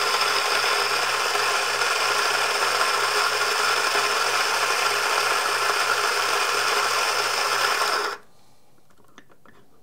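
Technivorm Moccamaster KM5 burr grinder's direct-drive motor running as its 50 mm flat steel burrs grind coffee beans: a steady grinding noise over a low motor hum, which cuts off abruptly about eight seconds in when the rocker switch is released. A few faint clicks follow.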